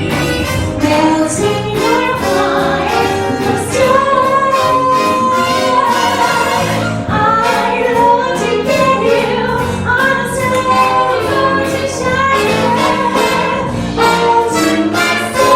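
Music with singing voices, female voices among them, over a steady beat.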